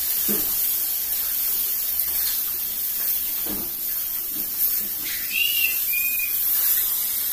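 Steady hiss from a steel pot of chicken cooking on a small gas-cylinder stove, with two short high whistles about five seconds in.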